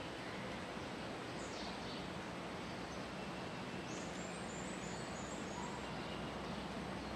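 Steady hiss of forest ambience with a few faint, short, high bird chirps: one about a second and a half in and a brief run of them about four seconds in.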